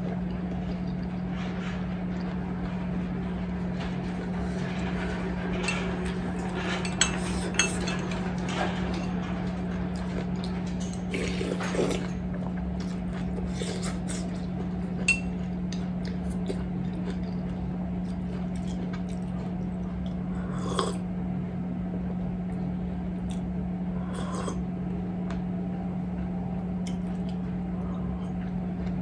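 Metal spoon clinking now and then against a ceramic soup cup as miso soup is spooned up and sipped, over a steady low hum.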